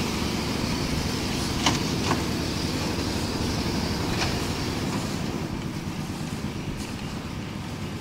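Concrete mixer machine running steadily, its engine noise low and pulsing, with a few sharp knocks about two and four seconds in. The running eases slightly in level after the middle.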